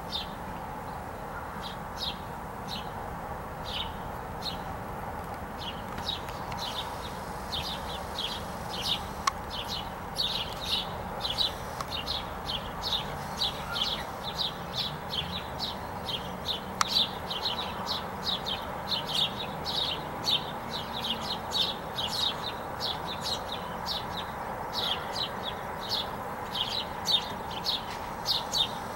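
A small bird chirping over and over in short, high chirps, two or three a second, growing busier about ten seconds in, over a steady background hum.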